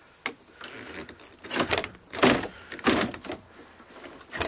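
An old door with a sliding bolt being handled: a series of scraping, creaking sounds, then a sharp click near the end.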